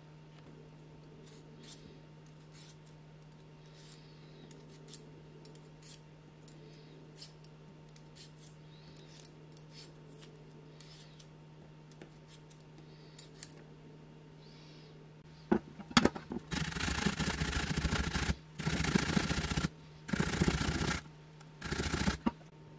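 Raw potatoes scraped with a hand peeler, faint and intermittent, then rubbed hard on a metal box grater. The grating is loud rasping in four stretches over the last seven seconds.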